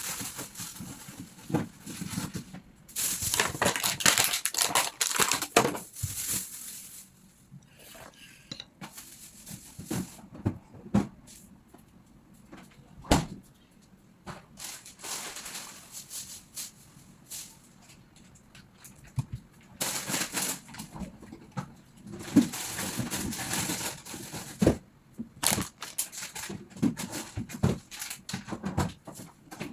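Plastic shopping bags and food packaging crinkling and rustling as groceries are handled and packed away, with scattered knocks and clicks of items being set down. The rustling comes in two longer stretches, about three seconds in and again around twenty seconds in.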